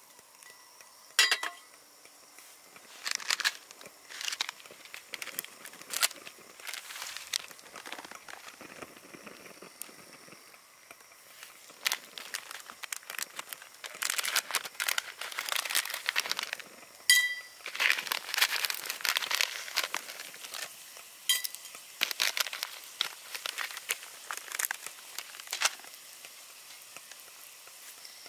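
Handling noises: crinkling and rustling with scattered clicks, and two sharp ringing clinks, one about a second in and one midway.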